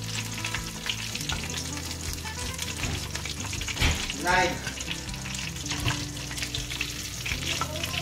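Prawn balls deep-frying in hot oil in a steel pan: a steady crackling sizzle, with a wire skimmer stirring and lifting them. Just before four seconds in, a sharp knock and a brief squeak.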